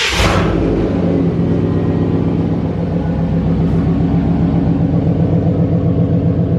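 Pickup truck's 305 V8 engine just started, settling into a steady idle with an even, pulsing exhaust note.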